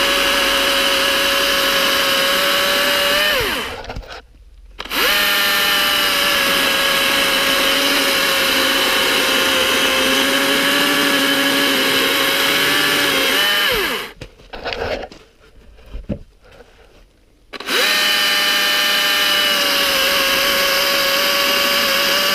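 Husqvarna 120i battery chainsaw's electric motor running at full speed with a steady high whine, in three long runs on the trigger. Twice the trigger is let go and the whine falls away, with a pause of about a second and then one of about four seconds before it starts up again.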